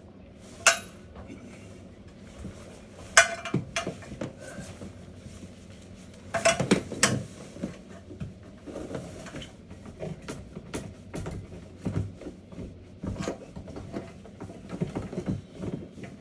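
Dryer-vent cleaning brush on a long push rod knocking and scraping inside the vent duct: an irregular clatter of knocks and scrapes, the loudest about three seconds in and again around seven seconds.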